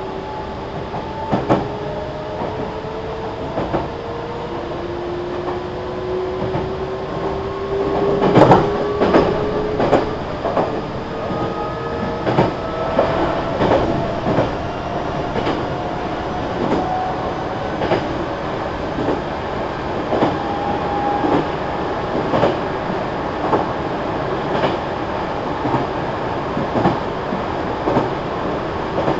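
Meitetsu 3300 series electric train running, its VVVF inverter and traction motors whining in several tones that climb steadily in pitch as the train picks up speed. Wheels click over rail joints, about once a second from partway in.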